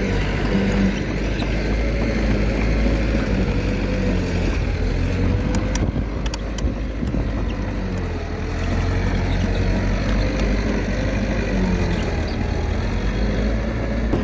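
Komatsu D21A bulldozer's diesel engine running steadily, with a whine that wavers in pitch over a deep drone and a few sharp clanks about halfway through.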